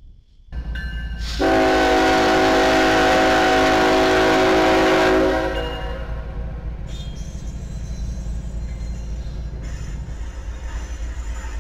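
BNSF freight locomotive sounding its air horn at a grade crossing in one long blast of about four seconds, several notes at once. Then the low rumble of the locomotive and its hopper cars rolling past.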